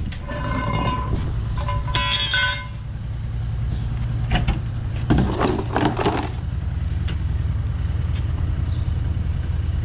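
A vehicle engine runs steadily under metal handling at a street manhole. In the first three seconds there is high squealing and scraping as the cast-iron manhole cover is dragged off its frame. Between about four and six seconds comes a rattling clatter as the metal dirt-catcher bucket is lifted out of the sewer shaft and set down on the paving.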